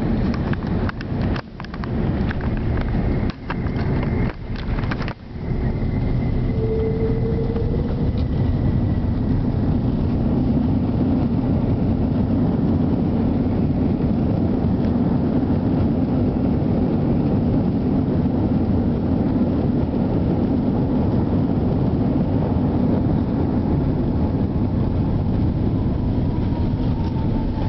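Airbus A330-300 on landing, heard from inside the cabin: a loud, steady rush of engine and airflow noise, broken by a few brief dropouts and knocks in the first five seconds.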